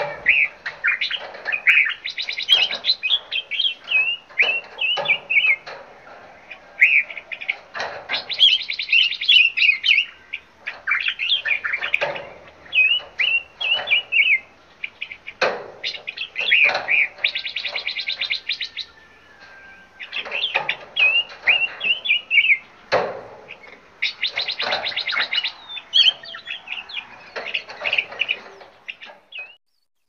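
Several songbirds chirping and singing over one another: short whistled notes, with a burst of rapid trilling every several seconds and a few brief knocks. The birdsong stops abruptly near the end.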